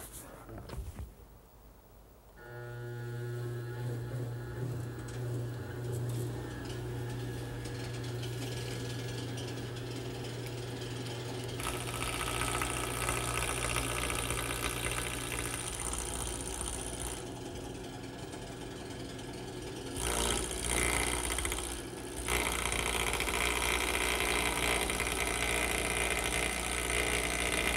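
Wood lathe starts up about two seconds in and runs with a steady hum. From about twelve seconds in, the duplicator's cutter takes a pass along the spinning pine table leg, adding a broad cutting noise; it eases off for a few seconds and comes back louder about twenty seconds in.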